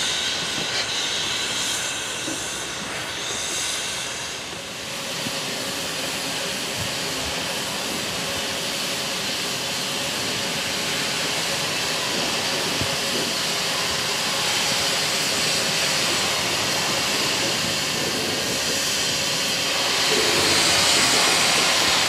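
Furka HG 3/4 steam locomotives hissing steam: a steady hiss, with a louder rush of steam near the end.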